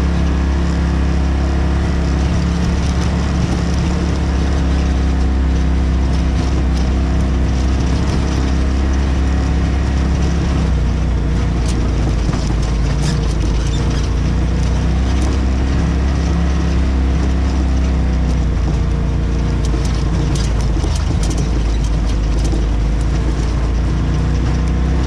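Polaris RZR side-by-side running steadily at trail speed over a rocky trail, heard inside the cab as engine drone mixed with tyre and chassis noise. Scattered clicks and rattles come about halfway through and again near the end.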